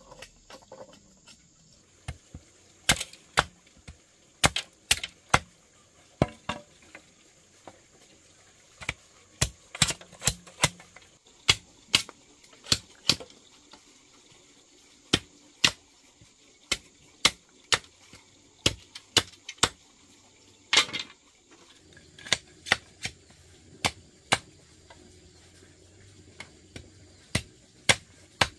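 Repeated sharp knocks or chops, like a hand tool striking, at an irregular pace of about one to two a second with short pauses; one longer, heavier strike comes about two-thirds of the way through.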